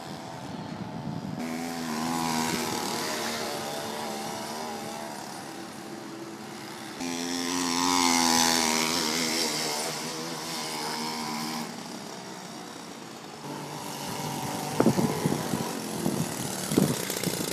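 A homemade friction-drive bicycle's 25cc Homelite two-stroke string-trimmer engine runs as the bike is ridden. Its pitch wavers with the throttle, and it is loudest as it passes close about eight seconds in. A few sharp knocks come near the end.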